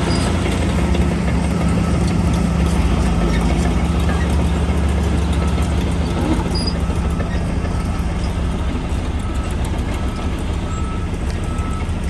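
Shantui DH17 bulldozer's diesel engine running steadily with a low, continuous drone that eases off slightly about halfway through.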